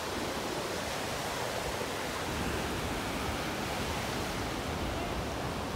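Steady wash of surf breaking on a sandy Gulf beach, an even rushing noise with no distinct events.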